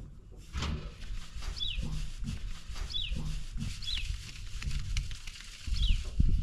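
A small bird repeating a short, falling chirp about once a second, over low thumps and knocks that grow heavier near the end.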